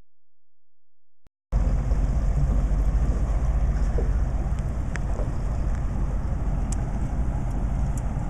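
A boat's engine running steadily under way, with wind rushing over the microphone; it cuts in abruptly about a second and a half in after silence.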